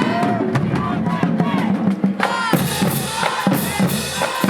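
Marching band drumline playing a cadence on bass drums and snares. Shouting or chanting voices ride over the drums in the first half, and a sharp crash about halfway in brings a bright cymbal wash.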